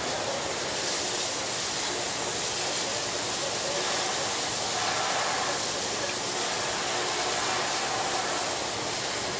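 Steady rushing hiss of a fire hose stream spraying water onto a smouldering building.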